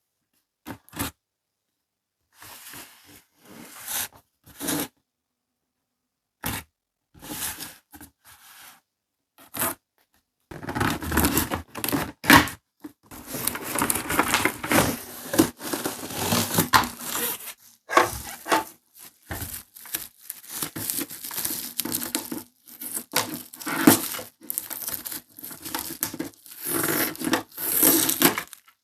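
Toy packaging being handled by hand: a few scattered clicks and rustles, then from about ten seconds in, steady tearing and crinkling as the packaging is ripped open.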